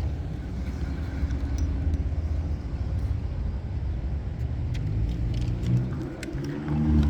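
Wind buffeting the microphone, a steady deep rumble. Near the end a low, steady engine hum of a vehicle comes in over it.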